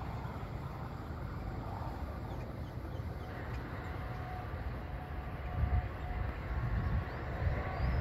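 Wind buffeting the microphone: a steady low rumble that gusts louder over the second half.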